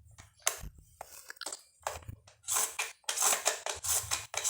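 Small plastic toy washing machine being handled: a run of clicks, knocks and crinkly rustling, sparse at first and busier and louder in the second half.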